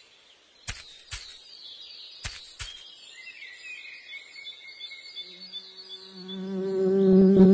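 Cartoon sound effects: four sharp clicks in two pairs, then the fluttering buzz of a flying insect as it darts in. Near the end a low held hummed note swells in and becomes the loudest sound.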